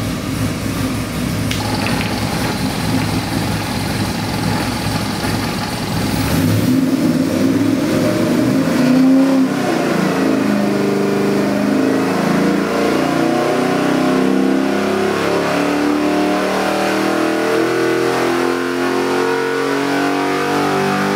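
A 427 cubic-inch LS V8 crate engine on an engine dyno, running steadily at first. After about six seconds it is opened up and pulls under load through a dyno RPM sweep, its note climbing steadily in pitch as the revs rise past 5,600 rpm.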